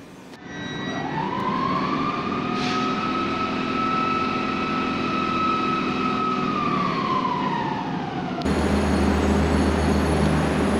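High electric whine from an SNCF 'nez cassé' electric locomotive of the BB 7200/BB 22200 family: it climbs in pitch, holds steady for several seconds, then falls away, with one sharp click in the middle. Near the end comes the steady low hum of an X 72500 diesel railcar's engines.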